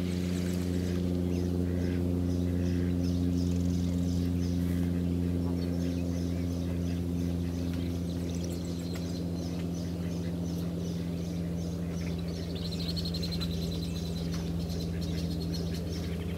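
Sandhill crane colt peeping: a long run of short, high, thin peeps, about three a second, running into a quick trill near the end, over a steady low hum.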